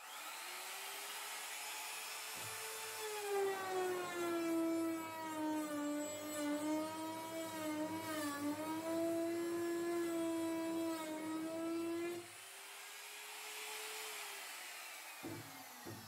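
Makita laminate trimmer (trim router) switched on with a high motor whine, which drops in pitch and wavers while the bit cuts along a wooden edge, showing the motor under load. After about ten seconds the cut ends and the pitch rises back to free running. Near the end it is switched off and the whine falls away as the motor spins down.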